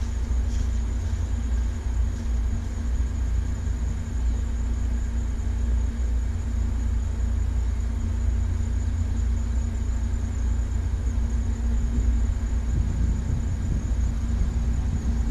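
Replica Sopwith Pup biplane's engine idling steadily on the ground, under a heavy low rumble.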